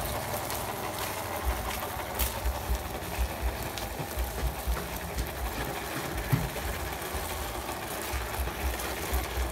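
Battery-powered ZP1001 RC crawler's electric motor and gearbox whirring steadily as it crawls over loose gravel, its tyres crunching on the stones, with uneven low thumping throughout.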